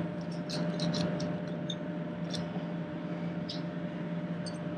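A few light, scattered clicks and scrapes of a screwdriver working a pushrod cover tube down into its seat on a Harley-Davidson Milwaukee-Eight engine, over a steady low hum.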